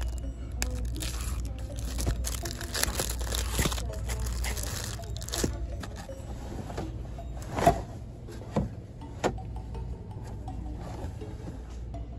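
Crinkling of cellophane-wrapped packs of paper napkins being handled, dense rustling through the first half, then quieter with three sharp clicks around the middle.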